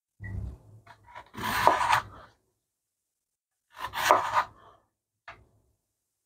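Chef's knife slicing thin rounds from a raw potato on a wooden cutting board: three separate rasping cuts, the loudest about a second and a half in, then a faint tick near the end.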